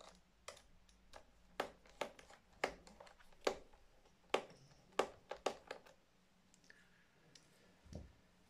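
Screwdriver clicking and tapping against a screw and the plastic underside of an HP 15-db laptop as the screw is undone: irregular sharp clicks about twice a second, thinning out after about six seconds, with a dull knock near the end.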